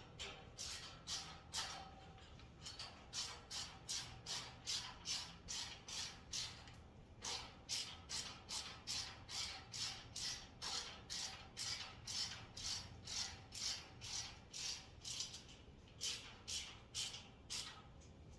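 Hand ratchet clicking in quick, even strokes as a screw is driven tight, with a couple of short pauses to reset the grip.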